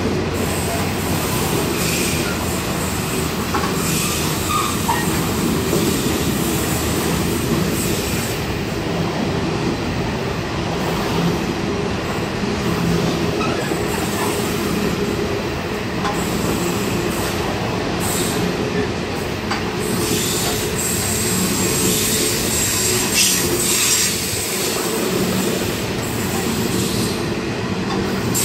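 Coal hopper wagons of a freight train rolling past steadily, a continuous rumble and rattle of steel wheels on rail with scattered clicks. A high wheel squeal rises over it about two-thirds of the way through.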